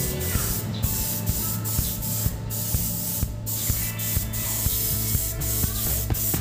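Compressed-air gravity-feed paint spray gun spraying paint: a loud hiss of air and atomised paint, broken by many brief gaps as the trigger is eased off and pulled again.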